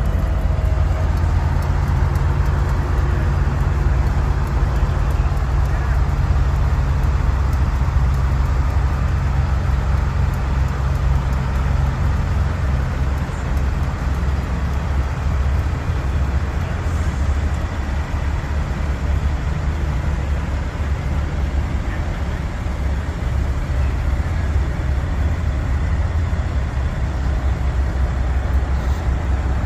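Diesel engines of Peterbilt semi tractors running as the trucks drive past one after another, a steady low drone.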